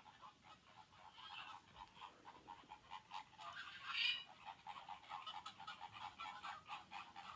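Recorded calls of a flock of flamingos: a quick run of short calls, several a second, with one louder call about four seconds in.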